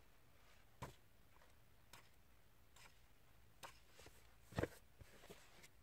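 Near silence: room tone with a handful of faint, short clicks scattered through it, the strongest about four and a half seconds in.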